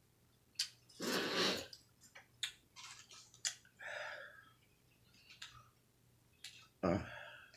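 A paper taco wrapper being unfolded by hand: soft crinkling and rustling with scattered small clicks, and a brief voiced mouth sound near the end.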